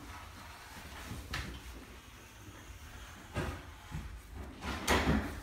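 Utility knife scoring aluminium trim coil clamped in a sheet metal brake, a few short scraping strokes along the metal, the loudest near the end. The score line lets the strip snap off cleanly when it is bent.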